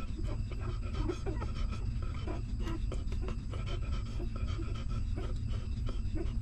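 Newborn puppies suckling at their mother dog: a busy, irregular run of small wet sucking and smacking clicks with short soft squeaks, over a steady low rumble.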